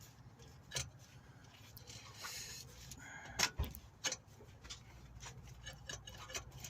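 Scattered light metallic clicks and knocks of tools and parts being handled while fitting a car's lower engine mount, with several coming close together in the second half, over a faint low hum.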